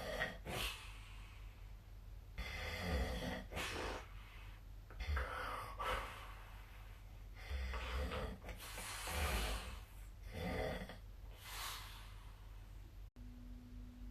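A sleeping person snoring, with a snore on each breath about every two and a half seconds. Near the end the recording cuts off abruptly and a steady low hum takes over.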